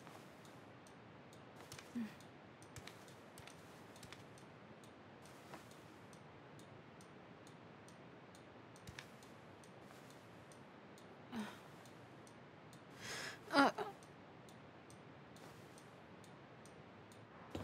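A woman's short sighs and soft hums in a quiet room: two faint ones, then a louder one with a falling pitch about two-thirds of the way through. Faint scattered clicks in between.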